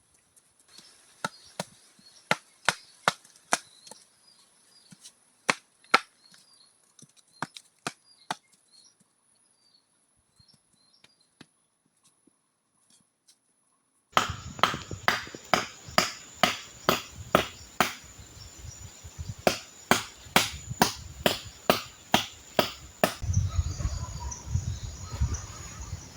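Wood being chopped: a run of sharp strikes about two a second that thins out toward the middle, then a louder run of two to three strikes a second. A low rumble comes in near the end.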